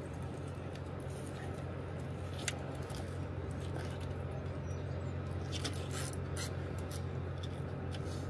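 A steady low rumble with a few light clicks and ticks scattered through it.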